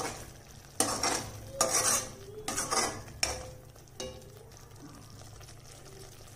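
Perforated steel ladle stirring thick masala gravy in a metal kadai, scraping and clinking against the pan in about six strokes over the first four seconds, then stopping.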